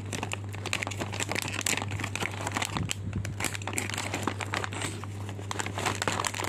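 Plastic snack packaging crinkling continuously as it is handled: an opened pouch of potato sticks and the small packets inside being rustled, over a steady low hum.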